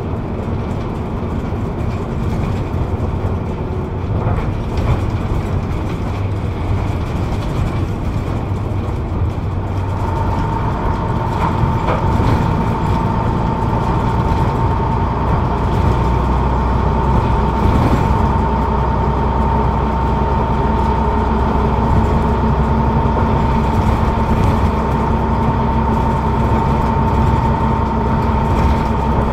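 Rear-mounted Leyland 680 diesel engine of a double-decker bus, heard from the back seat inside the bus as it runs along at a steady pace. About a third of the way in it grows slightly louder and a steady whine comes in and stays.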